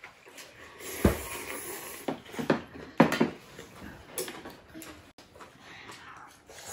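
Eating utensils knocking against dishes several times during a meal, the loudest knocks about a second in and about three seconds in.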